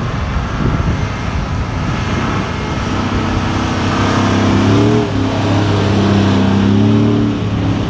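Mercedes-Benz G63 AMG 6x6's twin-turbo V8 engine driving the six-wheeled truck through soft beach sand. The engine note comes up about three seconds in, its pitch wavering a little, and is loudest near the end.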